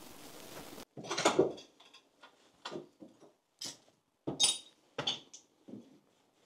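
Footsteps crunching and clinking on a floor littered with debris and broken glass, about six uneven steps. A steady background hiss cuts off abruptly about a second in.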